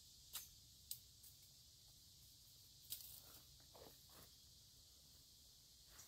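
Faint footsteps in dry leaf litter, with a few sharp twig cracks and a short rustle a little past the middle, over a steady high insect drone.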